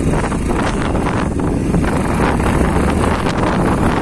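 Wind buffeting the microphone on a moving motorcycle, with the engine running underneath.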